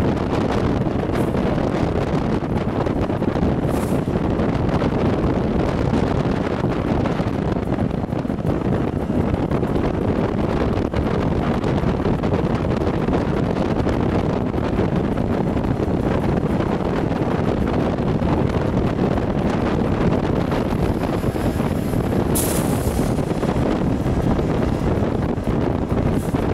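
Wind rushing over the microphone of a camera held out of a moving train's window, with the coach's running noise beneath. A steady rush with a few short high hisses, the strongest about three-quarters of the way through.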